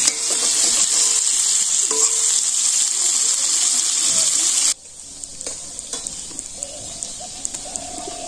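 Fish steaks frying in hot oil in a wok, a steady sizzle with the scrape of a spatula turning them. About halfway through, the sizzle drops abruptly to a much fainter level.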